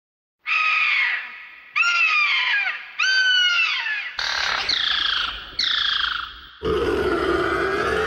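Sound-effect pterosaur calls: five shrill cries a little over a second apart, each falling in pitch, then a longer, rougher and lower call that begins about two-thirds of the way in and slowly fades.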